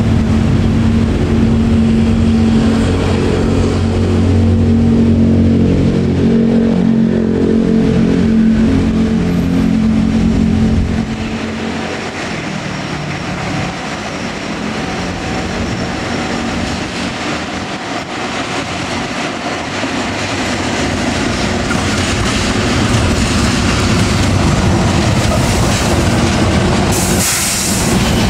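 Diesel-electric locomotive hauling a container freight train: its engine drones steadily at first. The sound drops abruptly about eleven seconds in, then builds again as the locomotive draws near and passes close, with wheel and rail noise and a short hiss near the end.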